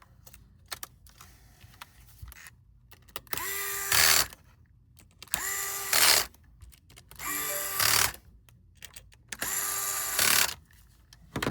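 Electric precision screwdriver driving screws in, four runs of about a second each. Each run whirs up quickly to a steady pitch and gets louder briefly just before it stops.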